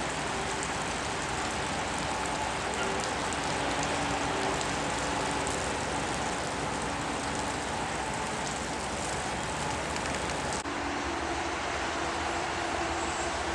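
Steady crackling sizzle of electric arc welding on the viaduct's steel bracing. About ten seconds in it gives way abruptly to a tanker truck driving past.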